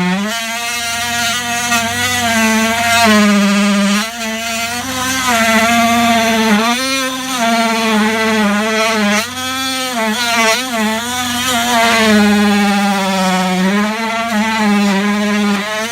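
Fein oscillating multi-tool cutting into a wooden batten, its steady buzzing whine dipping in pitch again and again as the blade bites and recovering between strokes.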